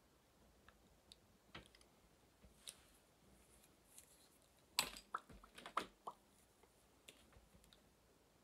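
Mostly near silence, with scattered faint clicks and taps from makeup products being handled on a desk, and a short cluster of louder clicks about five seconds in, as when a lip gloss tube is picked up and its cap worked.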